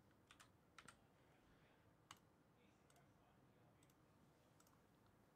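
Near silence: quiet room tone with a few faint, short clicks, four in the first second and one more about two seconds in.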